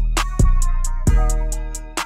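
Background music: a beat with deep, sustained bass notes, sharp drum hits every few tenths of a second and a held melody line above.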